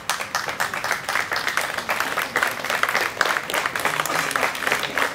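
A crowd applauding, with many hands clapping at once in a dense, uneven patter.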